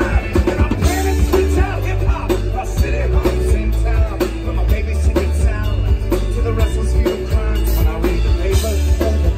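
Live band music played loud: strummed acoustic guitars under a shifting melodic lead line, over a steady, heavy low end.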